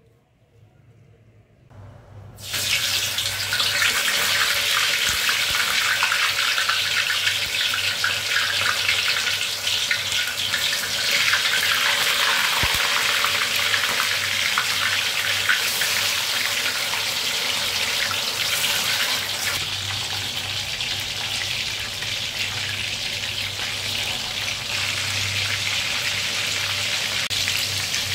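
Kitchen tap turned on about two seconds in, then water running steadily into a sink.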